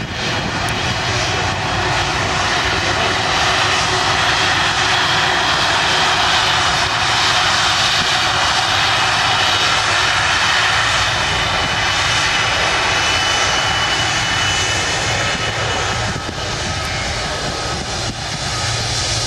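Jet engines of a twin-engined airliner running steadily at taxi power as it turns on the runway: a continuous rushing noise with a faint high whine.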